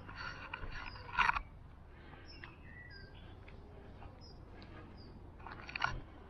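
Footsteps on a dirt towpath, a cluster in the first second and a half and another near the end. In between, small birds give several short, high chirps.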